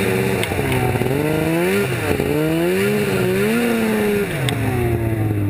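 A 1997 Polaris RMK 700 snowmobile's two-stroke triple engine is revving as it is ridden. It climbs and drops in pitch three times, then settles back toward idle about four seconds in.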